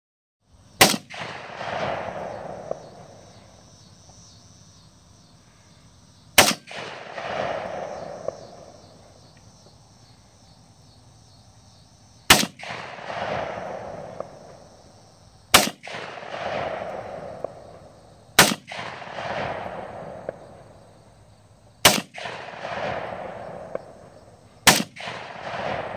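An AK-pattern pistol fired in slow single shots, seven in all, 3 to 6 seconds apart. Each sharp report is followed by an echo that rolls on for a second or two.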